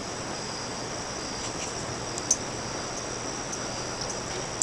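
Moss Emperor ceiling fan running on its low speed, a faint steady hum, under steady high-pitched insect chirping. One small click about halfway through.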